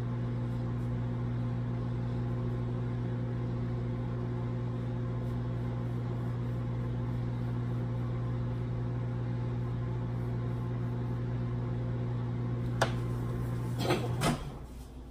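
Microwave oven running with a steady hum while it melts chocolate. Near the end there are a few sharp clicks and the hum cuts off.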